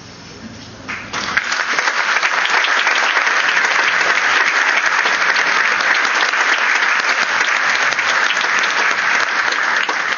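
Audience applauding, breaking out about a second in and fading away at the very end.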